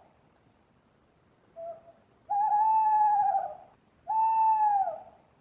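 Owl hooting: a short soft note about one and a half seconds in, then two long hoots, each dipping in pitch at its end.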